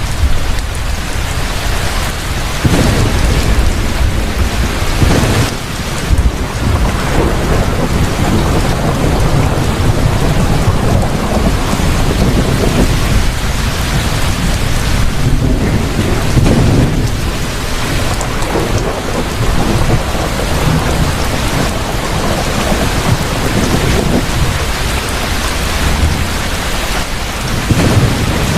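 Thunderstorm: heavy rain pouring down steadily, with repeated low rolls and rumbles of thunder swelling up through it.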